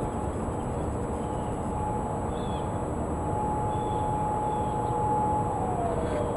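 Federal Signal Modulator outdoor warning siren sounding a steady tone during its weekly test, heard from two blocks away over background noise. The tone weakens and then swells again, and drops in pitch near the end. Birds chirp faintly.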